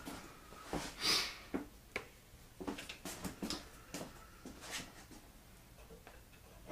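Irregular clicks, light knocks and scrapes of hand work on the tool and cutter grinder's parts, with one louder scraping rush about a second in.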